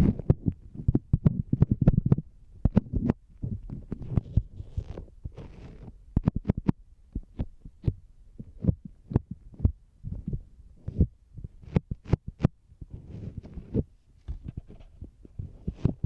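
Fingertips tapping on the outer ear of a binaural dummy-head microphone: irregular close taps and clicks with deep, muffled thuds.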